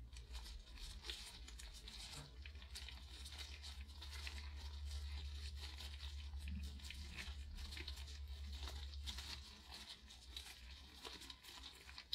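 Faint, fine sticky crackling and clicking of gloved hands kneading the two parts of EasyMold silicone putty together to mix them, over a low steady hum.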